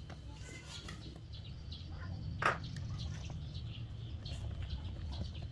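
Spatula stirring and folding thick lapis legit batter in a stainless steel bowl: soft scraping and sloshing, with one sharp click about two and a half seconds in, over a steady low hum.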